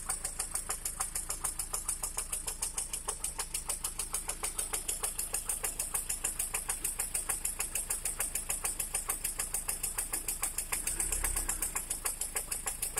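Lada Priora engine idling with a rapid, even, diesel-like knocking from inside the engine, a knock that appeared after the factory piston group was replaced.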